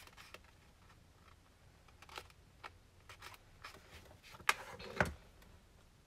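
Black cardstock being handled and folded on a cutting mat: faint rustles and light taps, with two sharper knocks about half a second apart near the end.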